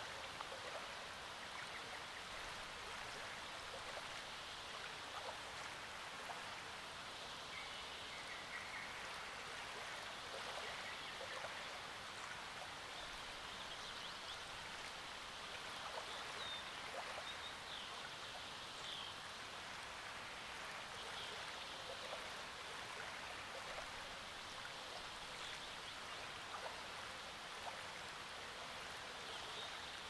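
Small waves lapping and trickling softly against the lake shore, with a few faint bird chirps in the background.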